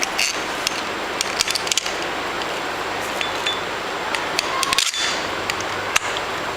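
Scattered light clicks and taps of metal parts being handled as a bolt is fitted through a locking assembly, over a steady hiss.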